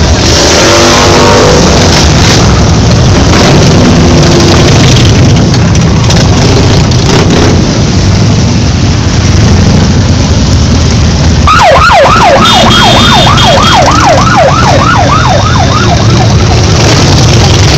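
Many Harley-Davidson V-twin motorcycle engines rumbling loudly as a parade of bikes rolls past. About two-thirds of the way through, a siren-like tone warbles rapidly for two or three seconds, about five rising sweeps a second.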